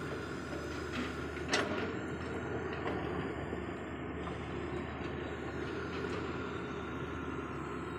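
An engine running steadily, with one sharp knock about a second and a half in.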